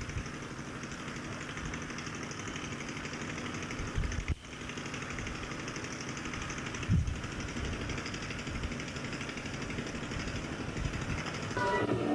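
A steady machinery hum with low wind-like rumbles, a brief break about four seconds in and a thump about seven seconds in; fairground music comes in near the end.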